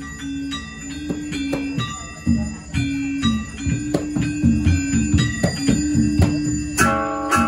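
Balinese gamelan gong ensemble playing: bronze metallophones and gongs struck in a busy, ringing rhythm over a low hum. A loud, bright accented stroke comes near the end.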